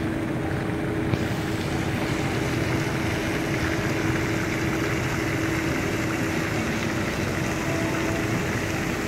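Fountain jets spraying water into a pond, a steady rushing hiss that turns brighter about a second in, with a faint steady hum underneath.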